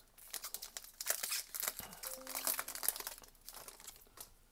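Foil trading-card booster pack crinkling and crackling as it is opened and handled, a dense run of sharp rustles that thins out near the end.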